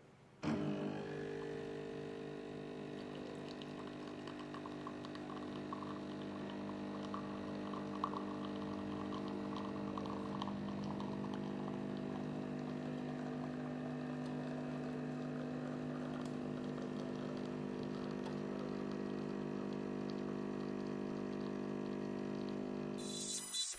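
BlitzWolf BW-CMM2 espresso machine's pump buzzing steadily as it pushes water through. It switches on suddenly about half a second in and cuts off a second or so before the end.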